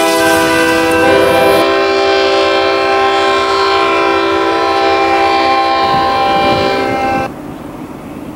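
Diesel locomotive air horn blowing a long chord of several steady notes, its notes shifting slightly about a second in, then cutting off sharply about seven seconds in, leaving a lower rumble.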